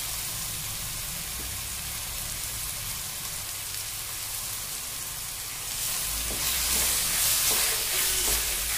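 Diced carrot, potato and beans sizzling as they fry with onions in a hot pan while being stirred in. The sizzle steps up louder about six seconds in.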